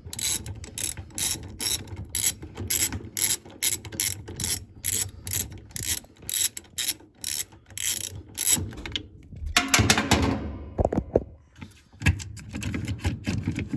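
Socket ratchet wrench clicking in quick repeated strokes, about three clicks a second, as it turns the agitator bolt inside a top-loading washer. Around ten seconds in the clicking breaks for a brief clatter, then starts again.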